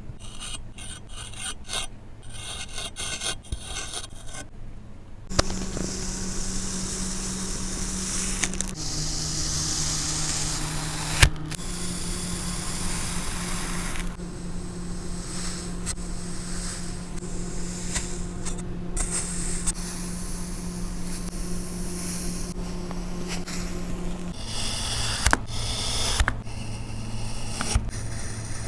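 Kinetic sand being cut and scraped, a gritty rasping crunch, in several takes that change abruptly every few seconds, with a single sharp click about eleven seconds in.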